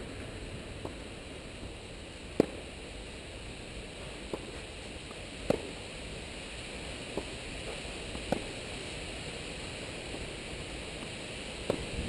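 Tennis ball struck back and forth with rackets in a rally: seven sharp, short pops, the louder ones about every three seconds from the near player and fainter ones from across the net in between, over a steady background hiss.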